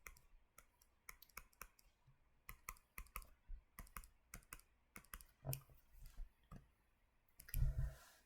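Faint, irregular clicks of a stylus tapping on a tablet screen while drawing, several to the second. A brief, louder muffled bump and rustle comes near the end.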